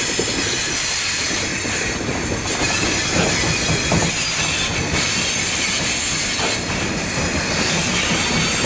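Freight train of covered hopper cars and flatcars rolling past: steady steel wheels on rail with a high wheel squeal and a few clacks over rail joints.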